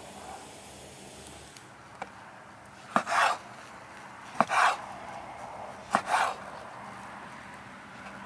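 Kitchen knife chopping an eel into chunks on a wooden cutting board: three cuts about a second and a half apart, each a sharp knock followed by a brief scraping sound.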